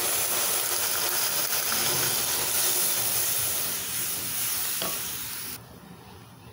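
Hot oil and fried masala paste in a pan sizzling as tamarind water is poured in and stirred with a wooden spatula. The sizzling cuts off abruptly near the end.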